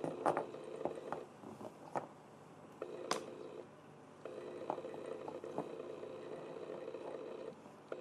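A steady electric hum that cuts in and out several times, with scattered sharp clicks and taps; the loudest click comes about three seconds in.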